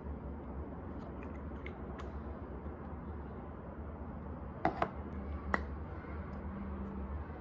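Small sharp clicks of a lip balm tube's cap being pulled off and handled: two close together, then one more just under a second later. A steady low room hum runs underneath.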